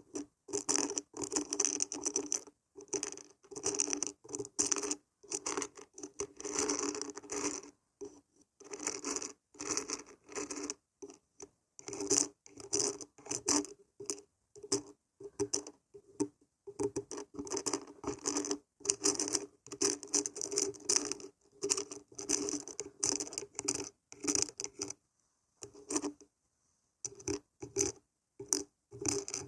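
Beans and barberries being shaken, rattling in quick repeated bursts with short pauses between them.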